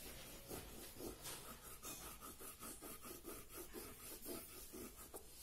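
Oil pastel scratching back and forth across drawing paper in quick, even colouring strokes, several a second, faint.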